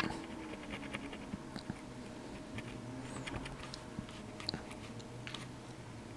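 Cotton swab being rubbed over the soldered pins of a surface-mount chip on a circuit board to scrub off sticky flux residue: faint scratching with scattered light ticks over a faint steady hum.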